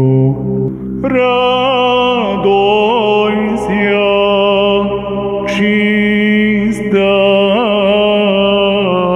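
Byzantine chant in the sixth tone: a slow, ornamented melody sung over a steady held drone note (ison). The voice dips briefly just under a second in, then re-enters with a new drone pitch.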